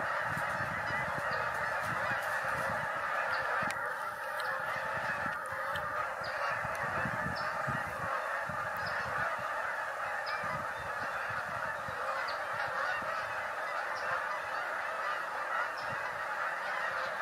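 A large flock of geese honking as it flies overhead, many calls overlapping without a break.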